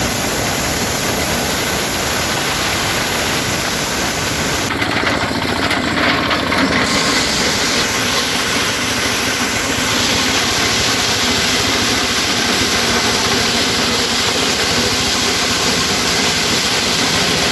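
Motorised corn sheller running steadily while ears of corn are fed through it: a continuous mechanical noise from the machine as it strips the kernels and throws out broken cobs.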